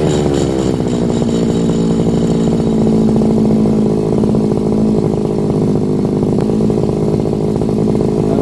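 Brush cutter's small petrol engine dropping from high revs to idle in the first second, then idling steadily.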